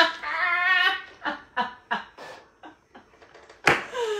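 A woman laughing hard: a long, high, wavering squeal of laughter, then a few short breathy laughs that die away. Near the end comes a sudden sharp sound and a held voiced note.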